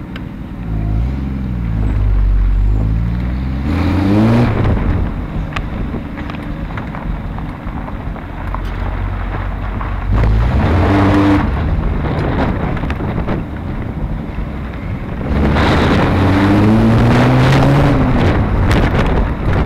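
1973 Triumph TR6's straight-six engine pulling away and accelerating through the gears. Its note climbs and drops back at each shift, with three loud pulls. It is heard from the open cockpit, its carburettors freshly tuned.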